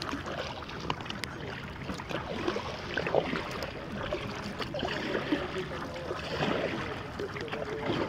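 Water lapping and splashing against a stand-up paddleboard as it is paddled across calm sea, with small splashes from the paddle strokes.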